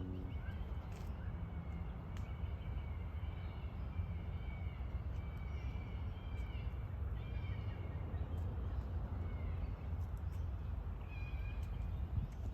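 A bird calling over and over, short drawn-out calls repeated through the first half and again near the end, over a steady low rumble.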